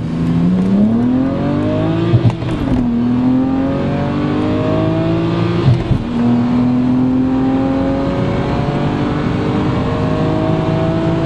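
BMW 135i's N54 twin-turbo straight-six, with downpipes and a stainless turboback exhaust, accelerating hard at 6 psi of boost through first, second and third gear, heard from inside the cabin. The engine note climbs, drops at a gear change about two seconds in and again about six seconds in, then rises more slowly in third.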